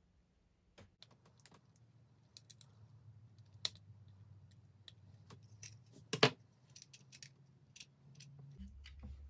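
Small screwdriver turning a screw into a 3D-printed PLA magazine shell, with scattered light clicks and ticks of plastic parts being handled, and one louder knock about six seconds in.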